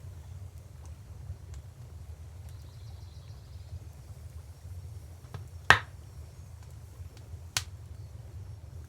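Wood fire crackling: a few faint snaps and two loud sharp pops about two seconds apart, the first the louder, over a steady low rumble.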